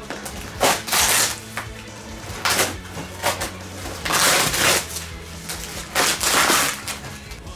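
Cardboard shipping box and its packing being torn and rustled open, in a string of short crinkling bursts with the longest about halfway through.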